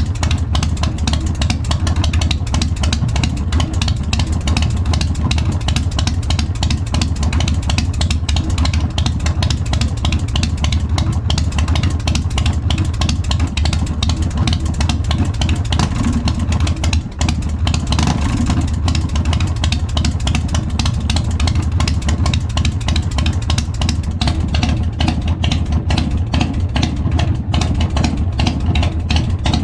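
Big Dog motorcycle's big-twin V-twin engine with a 585 cam running steadily through its exhaust, with a brief dip about seventeen seconds in.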